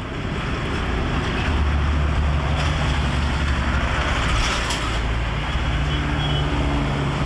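Steady road traffic passing on a city street, with the low drone of vehicle engines growing stronger about a second and a half in.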